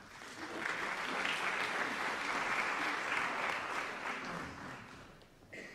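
Audience applauding, swelling up about half a second in and dying away near the end.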